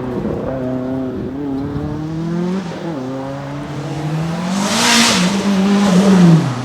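Race car engine accelerating hard, its note rising, dropping back at a gear change about three seconds in, and rising again. A short hiss about five seconds in, then the engine note falls away near the end.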